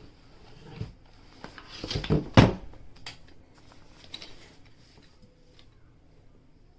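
Handling noise: a series of knocks and clatters, hard objects set down and moved about, with the loudest clatter about two and a half seconds in.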